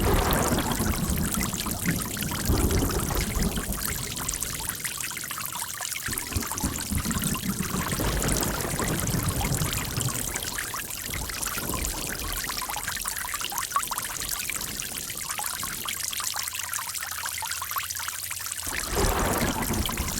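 Running water pouring and trickling continuously, with fuller, deeper gushes swelling and easing every few seconds.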